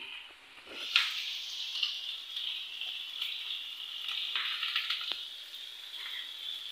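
Ginger-garlic paste sizzling in hot oil in an iron karahi on high flame, the sizzle coming up sharply about a second in and then holding steady. A few light knife taps on a plastic cutting board as a tomato is sliced.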